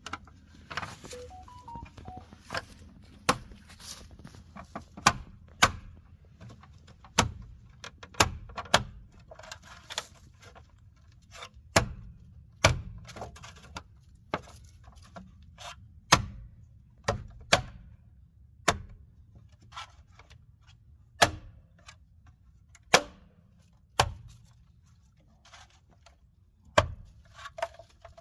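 Plastic wheel skin being knocked by hand onto an alloy wheel so its clips snap on: irregular sharp knocks and snaps, roughly one a second, some much louder than others.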